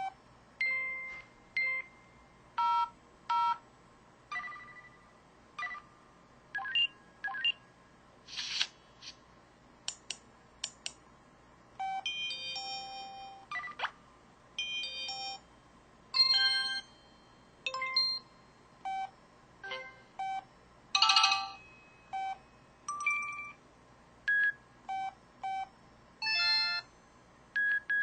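SKY IM-S110K mobile phone's built-in sound effects played one after another: a couple of dozen short electronic chimes and jingles, each separated by a brief pause.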